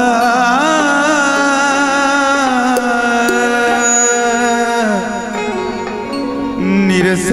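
Live Maithili song: a male voice holds long, drawn-out notes without words, with wavering ornaments, over instrumental accompaniment; a new phrase begins near the end.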